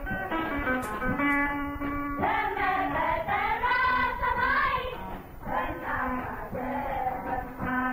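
Background music with a singing voice carrying a melody over a steady held low note.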